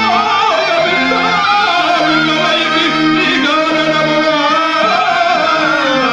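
A man sings a long, ornamented verse line with a wavering pitch through a stage microphone, in the style of Telugu drama verse singing, over sustained reed-organ notes from a harmonium.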